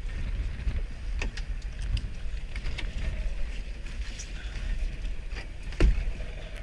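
Wind rumble on the microphone of a small boat on choppy water, with scattered clicks and knocks and one louder thump a little before the end.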